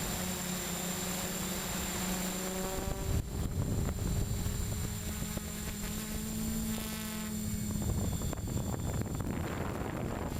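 Electric motors and propellers of a Storm 6 hexcopter drone, heard from the camera on board: a loud steady buzzing whine whose pitch shifts a few times as the rotor speeds change.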